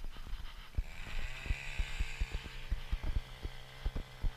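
An engine comes up to speed about a second in and then runs at a steady pitch. Irregular knocks and thumps sound over it.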